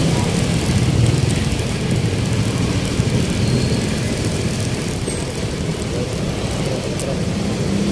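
Steady low rumble of road traffic: vehicle engines and tyres on the street.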